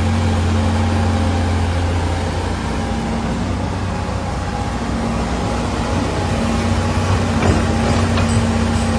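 Digger's diesel engine running steadily, which the operator judges a healthy engine and hydraulic pump. A few light knocks come near the end.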